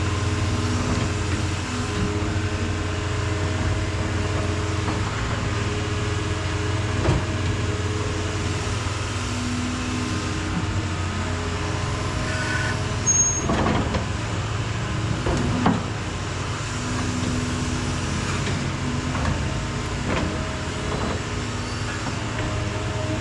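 Heavy equipment engine running steadily under shifting load, with a few sharp metallic knocks about halfway through.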